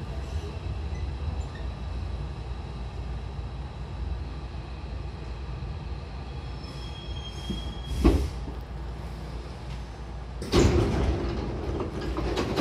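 Hankyu commuter train running slowly to a stop with a steady low rumble, a brief loud burst about 8 s in, then the double sliding doors opening about 10.5 s in with a loud hiss and slide.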